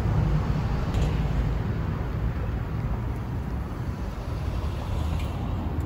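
Wind buffeting the microphone: a steady, uneven low rumble, with a faint click about a second in.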